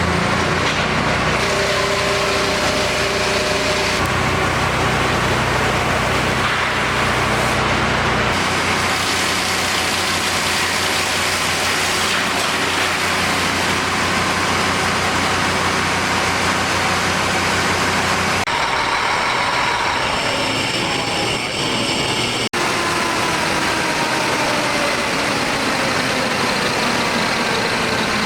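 Diesel engine of an SH1300-1000 wood chipper running loudly and steadily, with dense mechanical noise over the engine note. The sound changes abruptly a few times, with a brief dropout about two-thirds of the way through.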